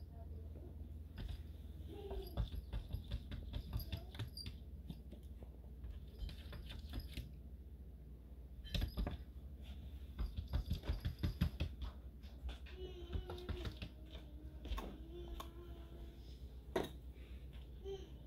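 Cat chattering at birds: quick runs of sharp clicks in bursts, with a few short, low calls in the second half.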